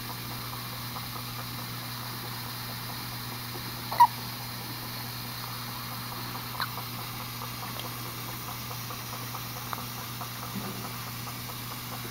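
Premature newborn hiccuping: a few short, squeaky hics a few seconds apart, the first, about four seconds in, the loudest, over a steady low hum.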